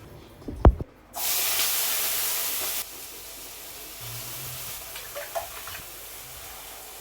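A sharp knock, then food sizzling loudly in hot oil in a frying pan. The sizzle drops after about two seconds to a quieter steady sizzle.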